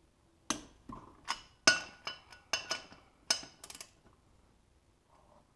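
Torque wrench and its socket clicking and clinking on wheel lug nuts as they are tightened to 27 foot-pounds: a run of about ten sharp metallic clicks over some three seconds, then quiet. The wrench's click signals that each nut has reached the set torque.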